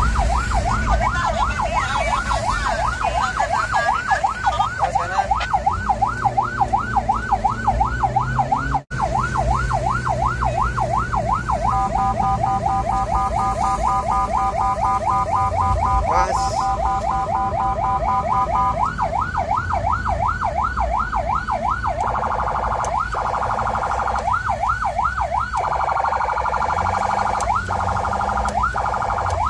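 Ambulance siren heard from inside the moving vehicle. It gives fast, repeated rising-and-falling yelps, switches for several seconds to a steadier rapid warble, then goes back to yelping and a denser mixed pattern, with engine and road rumble underneath. The sound drops out for a moment about nine seconds in.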